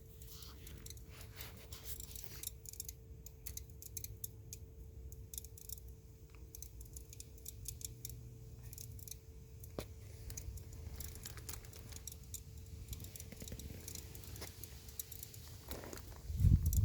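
2021 Ford F-150 crackling after the engine has been shut off: irregular sharp clicks and ticks, some in quick clusters, over a faint steady hum. A louder low thump comes near the end.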